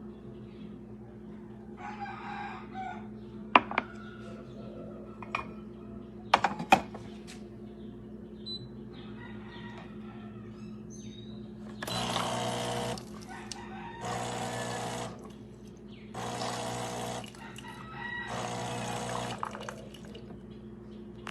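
De'Longhi Rivelia bean-to-cup espresso machine running with a steady hum, a few sharp clicks, then four bursts of hissing noise about a second long each.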